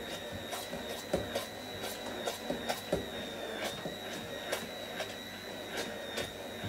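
Stick blender running in a tall stainless-steel beaker with a steady high motor whine, blending olive oil into mayonnaise as it is poured in. Irregular clicks and knocks come from the blender head moving against the metal beaker.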